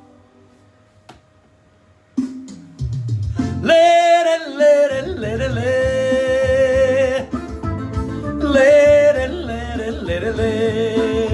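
Forró band music starting up after a brief lull: about two seconds in the band comes in, and a held, wavering melody line rises over a steady low beat.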